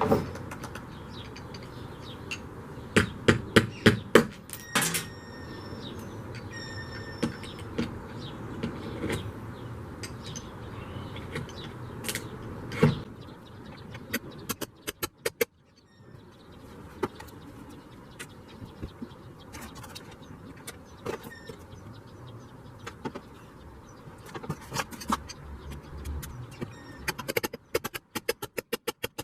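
Irregular metal taps and knocks as a Jeep's steel windshield frame is worked by hand, a few strikes ringing briefly, with a quick run of small clicks near the end.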